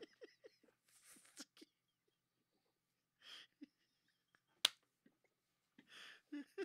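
Quiet, breathy laughter in short huffs, with one sharp click a little over halfway through.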